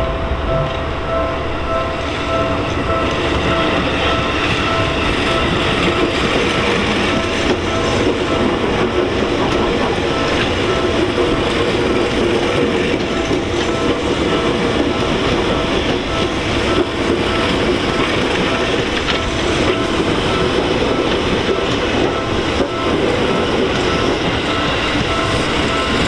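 A Seibu Shinjuku Line electric train passes over a level crossing with a steady, loud rumble and clatter of wheels on rails. The crossing's warning bell rings in a rapid, repeating ding over it, clearest near the start and then mostly drowned by the train.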